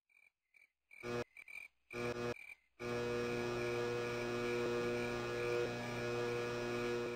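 Neon sign flickering on: a few faint electrical blips, then stuttering bursts of buzz as the tubes sputter, settling about three seconds in into a steady electrical hum.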